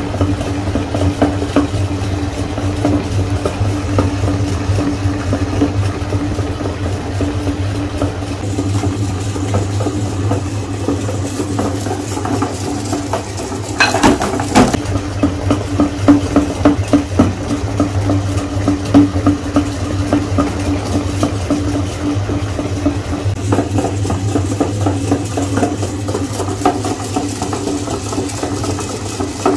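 Motor-driven metal meat grinder running with a steady hum while its auger grinds umbrella-shaped chocolate candies, with continual clicking and rattling of pieces in the metal hopper. About halfway through, the clatter grows louder as a new batch of candies drops in.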